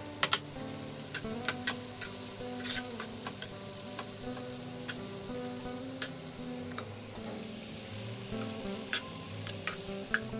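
Onion, pepper and tomato sizzling in a nonstick frying pan while a spatula stirs them, with scattered clicks and knocks against the pan; two loud knocks come about a third of a second in. Soft background music underneath.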